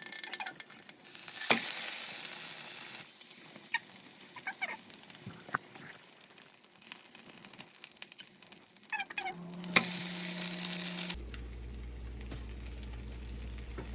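Egg-dipped challah bread frying in butter in a pan, a steady sizzle with a few sharp clicks. About eleven seconds in the sizzle cuts off suddenly, leaving a low steady hum.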